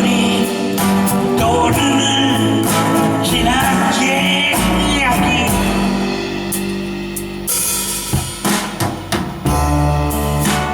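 A band playing a blues ballad: sustained guitar and keyboard-like chords with a wavering, bending lead line over bass and drums, and a drum fill of sharp hits near the end.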